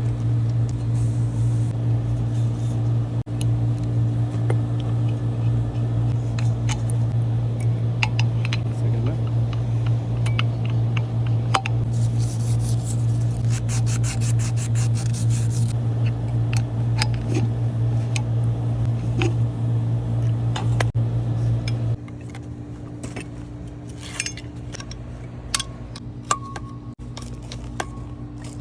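A steady low machine hum runs throughout and drops to a quieter level about two-thirds of the way through. Over it come metallic clinks, scrapes and a quick run of rapid clicks from hand-tool work on sheet-metal HVAC parts.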